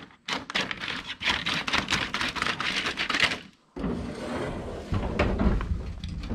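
A quick, dense run of clicks and crackles for about three seconds, then a sudden break, followed by a low rumbling noise with scattered knocks.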